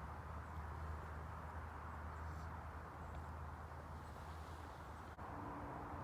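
Quiet outdoor background: a steady low rumble and hum with no distinct event. It breaks off for an instant about five seconds in, and a faint steady low tone joins after that.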